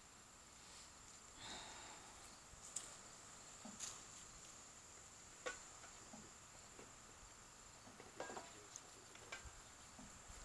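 Near quiet outdoors: a steady, high insect trill such as crickets make, with a few faint clicks and rustles scattered through.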